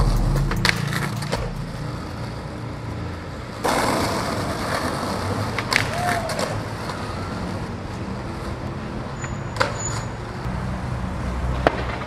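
Skateboard on asphalt next to street traffic: wheels rolling, with a louder rolling noise that sets in suddenly about four seconds in, and a few sharp clacks of the board.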